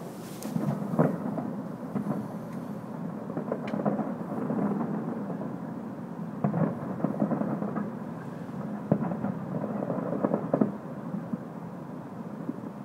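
Distant aerial fireworks bursting: a string of booms and crackles over a steady low rumble, with several sharp reports in the second half.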